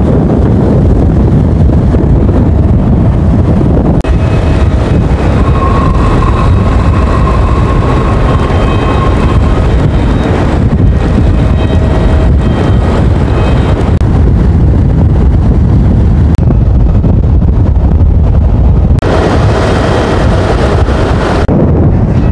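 Strong sea wind buffeting the microphone, a loud steady rumble. Faint steady whistling tones at a few pitches come and go in two stretches.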